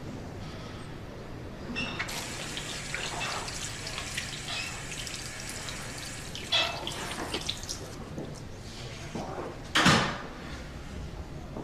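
Water running from a washbasin tap and splashing into the sink, starting about two seconds in, with a brief loud swish near the end.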